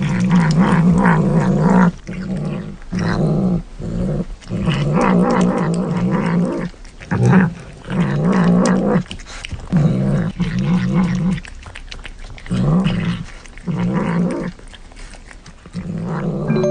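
Tabby cat growling as it eats, in about a dozen wavering bouts of up to two seconds each, with short pauses between them.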